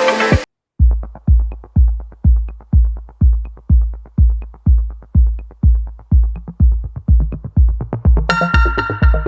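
Background electronic music with a steady kick-drum beat about twice a second, which starts after a short break; synthesizer chords come in near the end.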